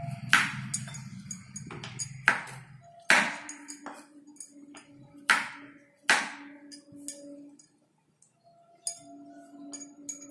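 Kitchen knife slicing through button mushrooms and striking a wooden cutting board: irregular sharp chops with a short ringing edge, about five loud ones.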